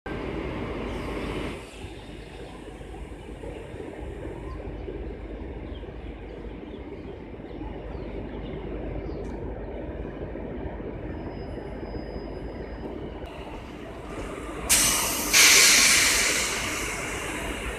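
WAP-4 electric locomotive running with a steady low hum and rumble. About fifteen seconds in come two loud bursts of hissing air, the second longer, as the train begins to pull away.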